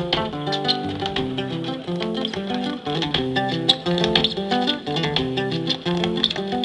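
Zapateo music: a guitar picking a quick melody, with a stream of sharp percussive taps from the dancer's footwork and cajón.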